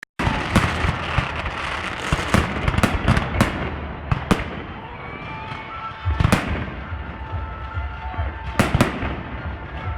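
Fireworks display: shells bursting in a rapid string of sharp bangs over a continuous rumble, thinning out after about four seconds, with a loud bang about six seconds in and two more in quick succession near the end.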